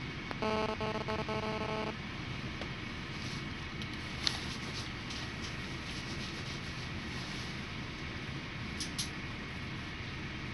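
Cabin of a GAZ Gazelle Next minibus standing at a red light, its engine idling with a steady low rumble. About half a second in, a pulsing electronic beep tone sounds for about a second and a half. A few light clicks come later.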